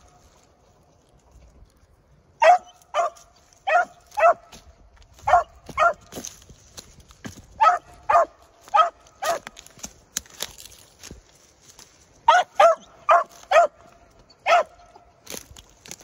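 Young beagle barking on a rabbit track: short, clipped barks in bunches of two to four, about fifteen in all, starting a couple of seconds in. This is the hound giving tongue as it trails the rabbit on its own.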